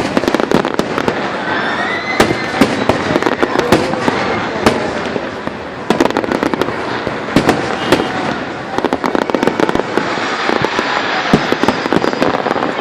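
Fireworks salute: a continuous barrage of shells bursting, with many sharp, irregular bangs over steady crackling.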